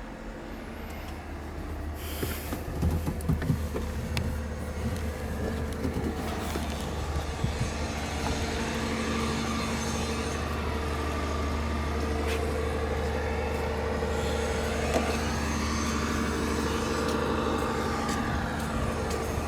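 MAN TGS 32.400 concrete mixer truck's diesel engine running steadily. There is a short hiss of air about two seconds in, and a few knocks over the next several seconds.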